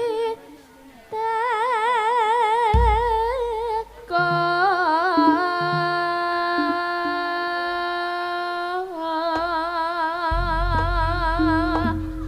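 Javanese gending with a female voice holding long sung notes with wide vibrato, in several phrases broken by short pauses, the longest held nearly steady for about five seconds. Deep bass notes come in under it about three seconds in and again near the end.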